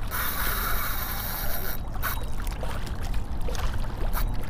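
Water slapping and trickling against a kayak hull, with wind rumbling on the microphone. For the first couple of seconds a fishing reel's drag buzzes steadily as a hooked fish takes line, then stops.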